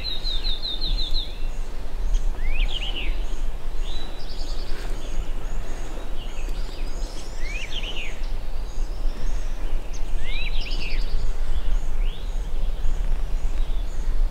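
Songbirds singing in spring woodland: short phrases of quick rising and falling notes about every two to three seconds, with faint high chips between them, over a steady low rumble.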